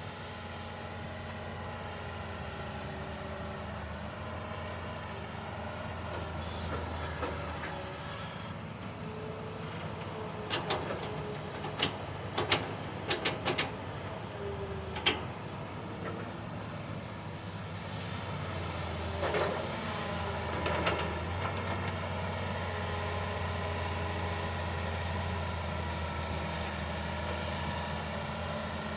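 Diesel engine of a backhoe excavator running steadily while it works loading sand. Sharp metallic clanks come in a cluster about a third of the way in and twice more past the middle.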